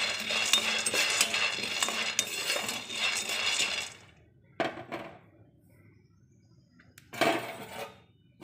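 Raw peanuts being stirred in a frying pan, a dense rattling clatter of nuts and utensil against the pan. It stops about four seconds in, followed by two brief rattles later on.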